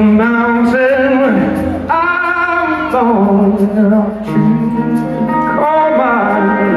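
Rock band playing live, a singer holding long notes that step up and down in pitch over guitar and bass.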